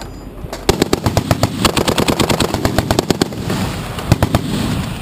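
M2 .50-calibre heavy machine gun firing a long burst of rapid, evenly spaced shots lasting about two and a half seconds, starting under a second in, followed by a few more shots about four seconds in.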